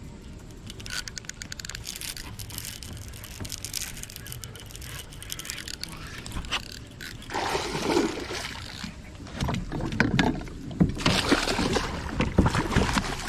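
Quick clicking and rattling of a baitcasting reel and rod as a hooked bass is fought. From about seven seconds in, louder splashing as the bass thrashes at the surface beside the kayak.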